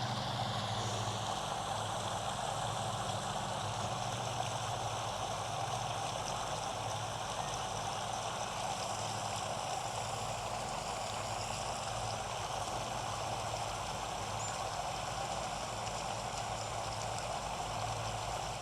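A vehicle engine running steadily: a low, even hum with a hiss over it, no change in speed.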